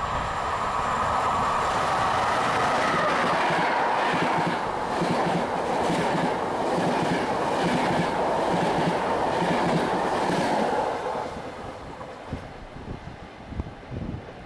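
Passenger train passing at speed close by, its coach wheels clattering rhythmically over the rail joints. The noise falls away sharply about eleven seconds in as the last coach goes by, leaving a fainter rumble.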